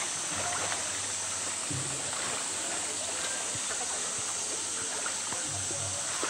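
Water splashing and sloshing as a polar bear swims, pushing a blue plastic toy through the pool, over a steady rush of flowing water.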